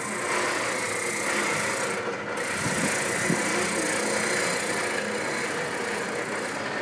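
Delta benchtop spindle sander running steadily, with the rasping rub of a curved wooden workpiece being pressed against the sanding drum to smooth its profile.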